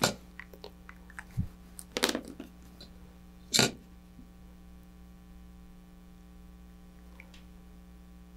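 Small tools and parts being picked up and set down on a workbench cutting mat: a few knocks, clicks and a short rustle in the first four seconds, then only a faint steady mains hum.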